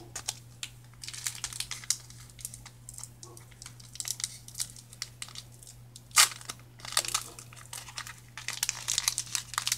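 Foil Pokémon card booster pack wrapper being torn open and crinkled: irregular crackling, with one louder rip about six seconds in. A steady low hum runs underneath.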